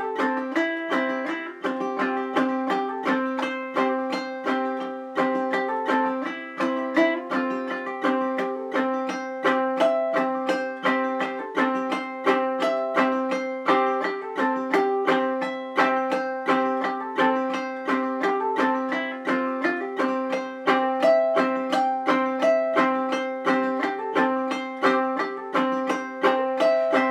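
Ukulele played clawhammer-hybrid style: a melody note picked, then a strum, then the thumb on the top string, in a steady "bum diddy bum diddy" rhythm. A short melody in the key of C.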